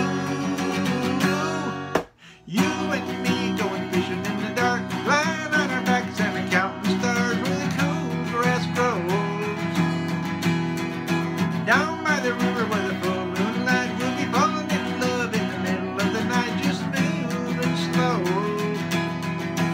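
Acoustic guitar played solo as an instrumental break between sung verses, with a short gap in the sound about two seconds in.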